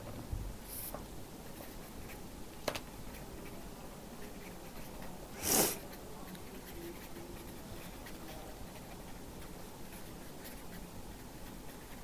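Marker pen writing on paper: faint scratching strokes over a low room hum. There is a sharp click a little under three seconds in and one short, louder hiss about halfway through.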